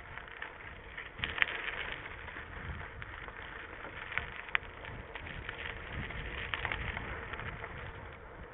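Mountain bike rolling over a gravel dirt track: steady crunch and rumble of the tyres on loose stones, with sharp clicks and rattles now and then, loudest about a second and a half in.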